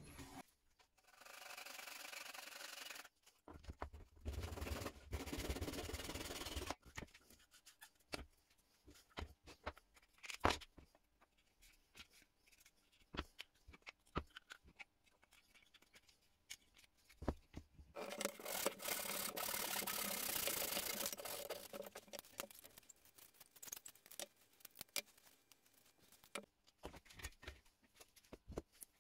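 Plywood and dowel pieces being handled, fitted together and set down on a hard surface: scattered light wooden knocks and clicks, with three stretches of steady rubbing noise lasting a few seconds each, the last about two-thirds of the way in.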